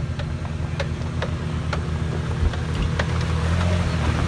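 Toyota FJ Cruiser's 4.0-litre V6 running at low revs as the truck crawls past through mud, a steady low hum with scattered sharp clicks.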